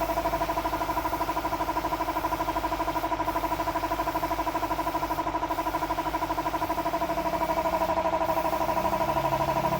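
A motor-driven machine running steadily with a pulsing hum.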